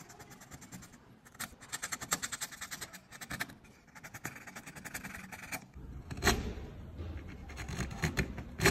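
Hand tool scratching on wood in a rapid run of short strokes for a few seconds. After that come a low rumble and a couple of sharp knocks.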